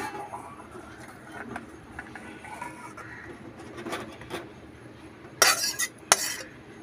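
Metal spatula scraping and clinking against an aluminium kadai while fish curry is tipped out into a steel bowl, with light clinks at first and two louder scrapes near the end.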